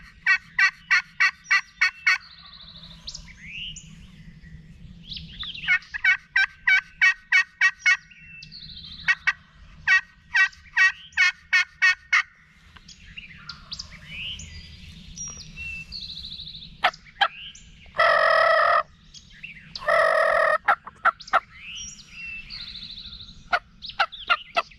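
Turkey yelping in three runs of about ten quick notes each, the hunter calling to draw a tom in, then two loud rattling gobbles about two seconds apart near the end. Songbirds sing faintly in the gaps.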